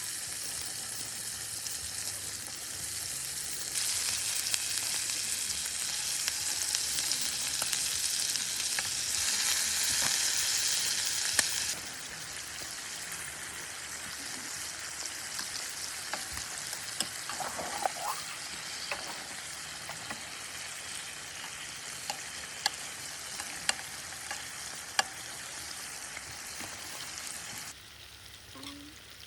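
Food sizzling in a hot pan, with scattered pops and crackles over a steady hiss. It is louder for a stretch in the first half.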